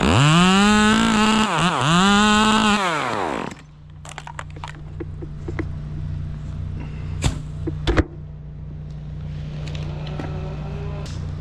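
Two-stroke chainsaw revved to full throttle for about three seconds, dipping briefly once, then released. A steady low engine hum carries on underneath, with a couple of sharp knocks a few seconds later.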